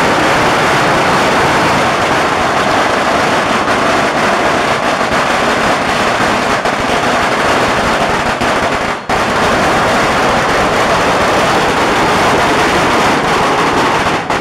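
A long string of Chinese firecrackers going off in a continuous, rapid, loud crackle, with a brief break about nine seconds in.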